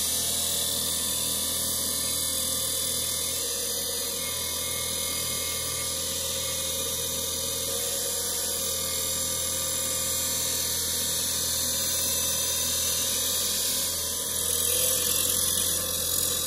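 Abrasive cut-off wheel grinding through a steel drive shaft tube: a steady, loud, high hiss of the wheel in the metal, getting a little louder near the end as the cut goes through.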